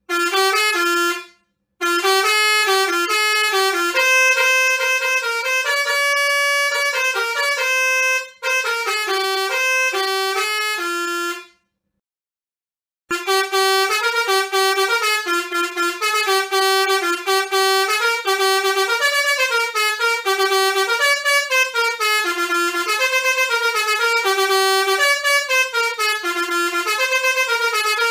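Bus 'telolet' multi-tone musical horn playing melodies of short stepped notes. It breaks off briefly about a second in and for about a second and a half near the middle, then resumes with a quicker run of notes.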